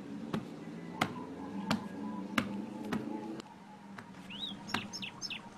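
Cartoon footstep sound effect: an evenly spaced soft click about every two-thirds of a second, the animated boy walking with the trash bag. It plays over a soft music bed that stops about halfway through, and a few quick bird chirps come near the end.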